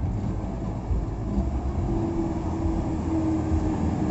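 A Sonalika 750 tractor's diesel engine running hard under load as it pulls four fully loaded trolleys, heard as a steady low rumble along with the trolleys rolling past. A steady higher note joins about halfway through.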